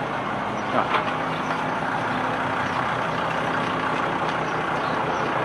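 Steady street traffic noise with a vehicle engine idling nearby, and a couple of short knocks about a second in.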